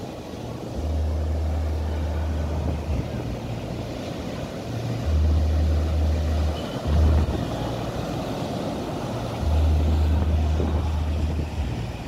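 Atlantic surf crashing over a rock breakwater and washing up a sandy beach, a steady rushing noise. Heavy low rumbles from wind on the microphone come in four gusts and are the loudest part.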